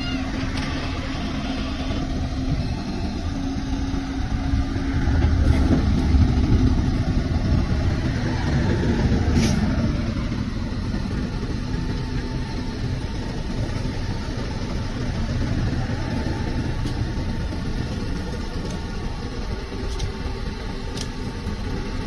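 Backhoe loader's diesel engine running steadily while its backhoe arm digs, getting louder for a few seconds midway as it works harder.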